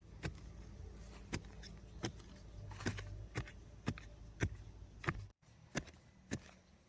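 A series of sharp, irregular knocks and clicks, about a dozen, over a low steady rumble.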